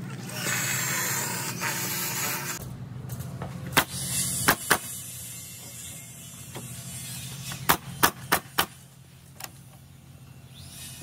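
Cordless drill running as it bores into a pine board. Then a pneumatic coil framing nailer fires eight sharp shots into timber framing: three about four seconds in, five more around eight to nine seconds.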